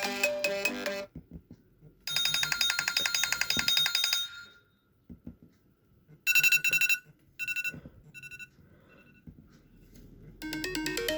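Several iPhone ringtones played one after another, with short quiet gaps between them. One tune ends about a second in. A fast, rapidly pulsing electronic ring follows from about two to four seconds. A bright tone sounds near six seconds and repeats in fading echoes. A new melodic ringtone begins near the end.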